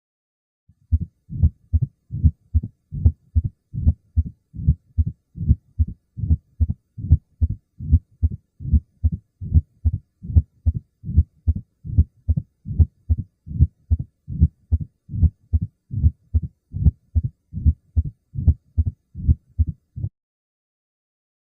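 Recorded heart sounds of a heart with a stenosed valve: a steady, regular run of heartbeats with a murmur. It starts about a second in and stops shortly before the end.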